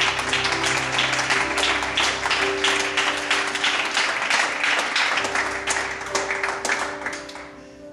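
A congregation applauding over softly held instrumental chords; the clapping thins out and fades near the end, leaving the chords.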